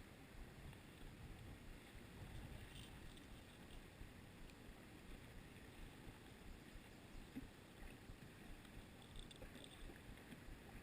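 Near silence: a faint, even low rumble of outdoor background noise, with a few very faint ticks.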